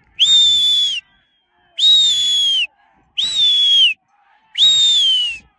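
Four loud, high whistles, each just under a second long. Each holds a steady pitch and drops away at the end.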